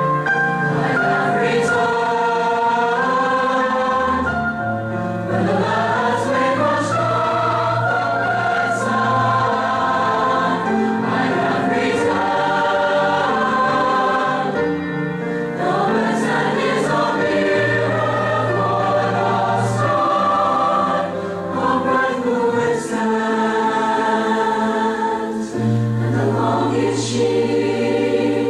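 A high-school choir singing in several parts, with long held chords and gliding phrases, played back from a Scotch Scream'R Type I (normal bias, 120 µs) compact cassette as an audio test of the tape.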